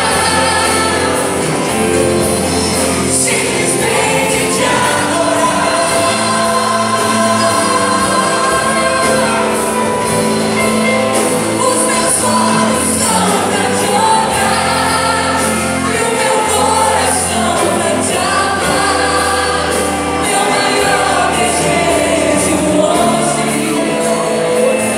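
Live gospel worship music: a church band with acoustic and electric guitars and drums accompanying several singers, playing loudly and without a break.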